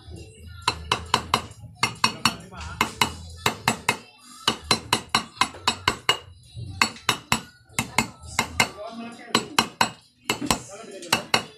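Hammer tapping a new 6203 ball bearing into a motorcycle's rear sprocket flange hub: sharp ringing metal strikes in quick bursts of three to five, with short pauses between. This is how the bearing is driven in and seated in the hub.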